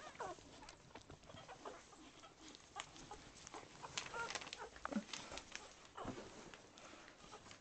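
Faint, short squeaks of day-old English Springer Spaniel puppies nursing, with scattered soft clicks.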